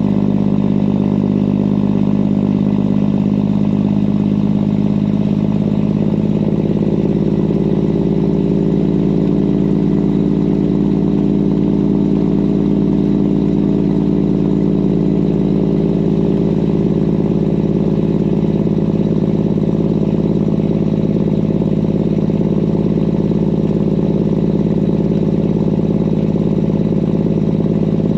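Semi truck's diesel engine running steadily under way on a dirt road, heard from inside the cab, its note shifting slightly about six seconds in.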